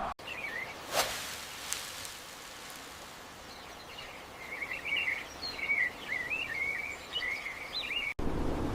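A bird twittering in a quick run of short, warbling chirps that starts about four seconds in, over a soft outdoor hiss. A sharp click sounds about a second in.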